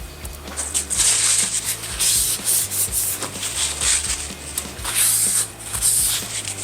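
1500-grit oiled sharpening stone stroked back and forth along a scissor blade in a guided-rod sharpener. Each pass gives a hissing rasp, about one stroke a second.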